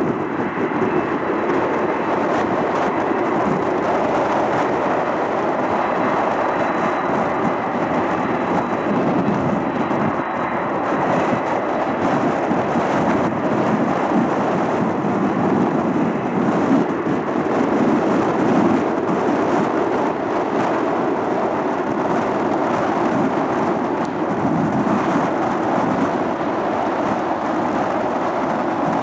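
Boeing 747 freighter's four jet engines running at taxi power: a steady, loud rumbling hiss with a faint high whine over it.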